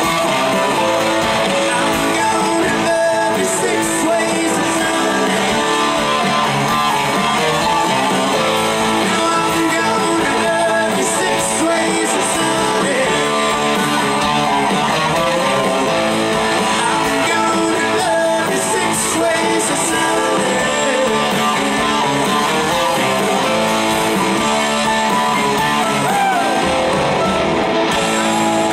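Southern rock band playing live: electric guitars, bass guitar, drums and keyboard together at a steady full level.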